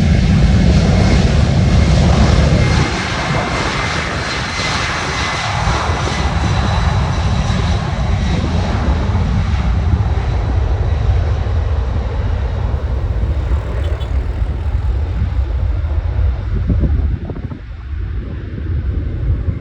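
Boeing 767-300 freighter's twin jet engines: a loud, steady rumble with a faint high whine, heaviest for the first three seconds, then carrying on lower and dropping away near the end.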